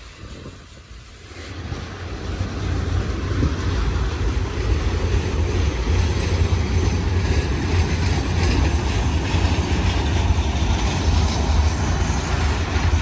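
Freight train cars rolling past: a steady low rumble with wheel and rail noise, swelling about a second and a half in and then holding.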